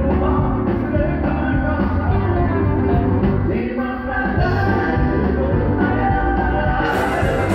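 Live country band playing, with a woman singing lead over strummed acoustic guitars and drums.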